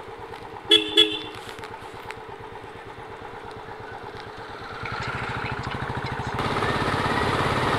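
Motorcycle engine running with an even beat of firing pulses, with a horn giving two short toots about a second in. The engine grows louder about five seconds in and again a little later.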